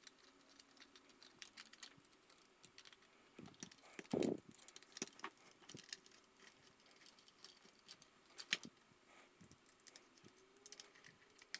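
Faint, scattered clicks and taps of small metal parts being handled: the face plate of a small metal enclosure being fitted and its tiny screws turned with a small screwdriver. One brief, duller knock stands out about four seconds in.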